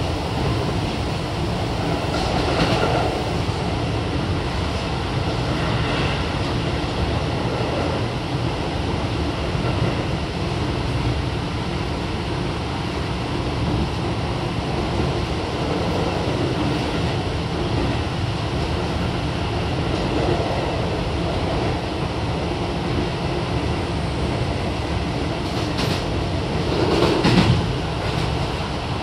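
Keio 7000 series commuter train running at speed, heard from inside the passenger car: a steady rumble of wheels on rail with a periodic clatter, and a louder rattle about 27 seconds in.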